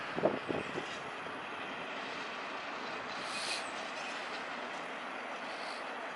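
DB class 218 diesel locomotive hauling track-construction wagons slowly along a station track: a steady rolling rumble of wheels on rails, with a few knocks in the first second and a brief high hiss about three and a half seconds in.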